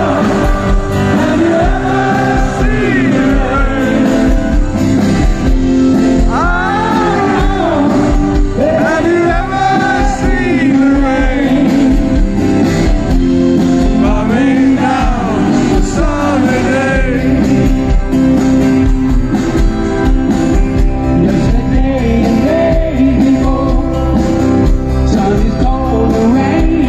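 Live rock band playing a mid-tempo song: singing over strummed acoustic guitar and a band with a steady drum beat, amplified through the PA and heard from within the crowd in a large hall.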